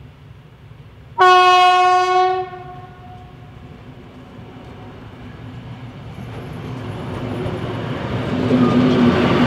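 A DR class 112 diesel-hydraulic locomotive sounds one loud horn blast, a little over a second long, about a second in. Its engine and the train's wheels then grow steadily louder as it draws near and passes close by.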